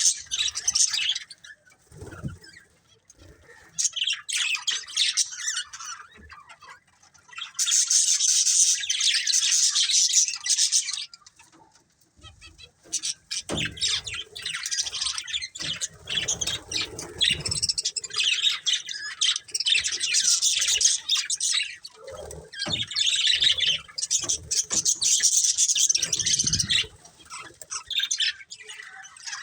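Budgerigars chirping and chattering in rapid, scratchy bursts lasting several seconds at a time, with short pauses between, and some low rustling or fluttering now and then.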